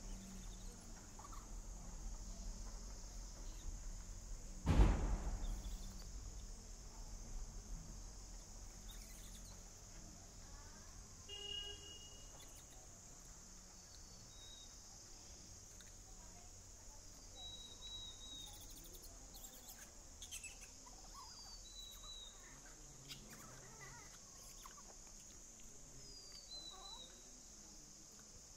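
Forest ambience: a steady high buzz of insects, with a few short, falling bird chirps scattered through. A single low thump stands out about five seconds in.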